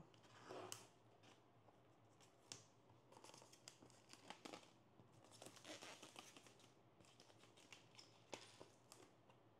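Faint crinkling and tearing of clear plastic wrap being peeled off a cardboard box by hand, in short scattered crackles and rustles.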